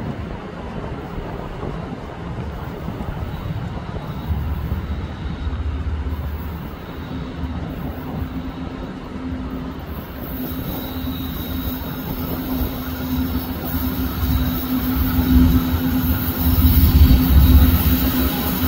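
Norfolk Southern freight train approaching, its lead diesel locomotives' engines running with a steady low drone that grows louder toward the end. Wheel-on-rail noise builds over the second half.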